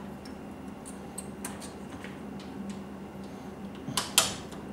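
Faint, scattered clicks and taps of a brass pipe fitting being handled and pushed onto multilayer plastic pipe, with two sharper clicks about four seconds in, over a steady low hum.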